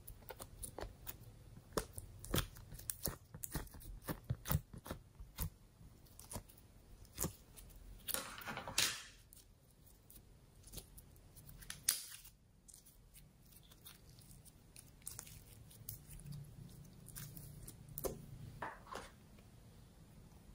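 Sticky slime being scooped and stretched by hand: a run of wet clicks and pops, with a longer noisy stretch about eight seconds in.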